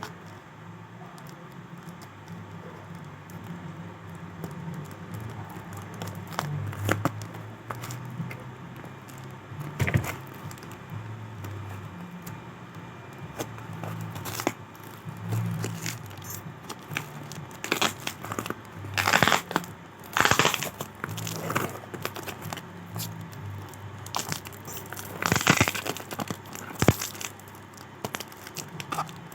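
Packaging being opened by hand: irregular crinkling and tearing of wrapping, sparse at first and busier in the second half, over a low steady hum.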